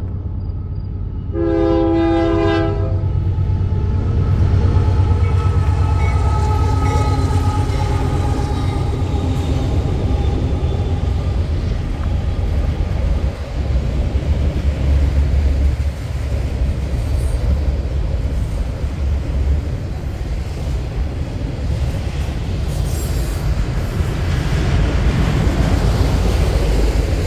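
A Union Pacific GE AC44CWCTE locomotive sounds one short horn blast, then the train passes close by, with a steady deep rumble of the locomotive and the autorack cars' wheels on the rails.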